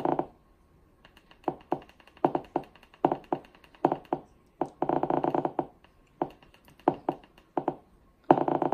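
Short, identical electronic beeps from a streaming TV box's menu, one for each step down the channel list. Some come singly, a few tenths of a second or more apart; two come in fast runs of about ten a second while the list is scrolled quickly, one about halfway through and one starting near the end.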